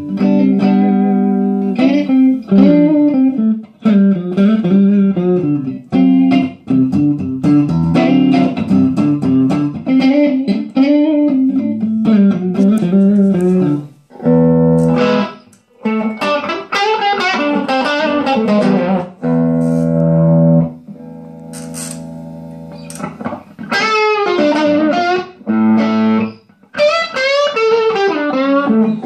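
Electric guitar played through a 6V6-powered 20-watt 1x12 tube combo amp: single-note lead lines with string bends and vibrato, broken by chord hits, with one chord left ringing for a few seconds past the middle.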